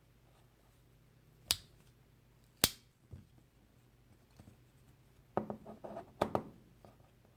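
Pocket knife being handled: two sharp snaps a little over a second apart, like blades clicking shut on their backsprings, then a short clatter of clicks near the end.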